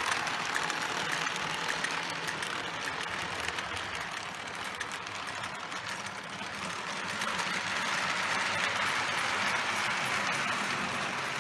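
Lionel 682 Turbine model locomotive running in forward around a toy-train layout: a steady whir of its electric motor and gears with wheels rolling on the track. It gets a little quieter about halfway through, then louder again.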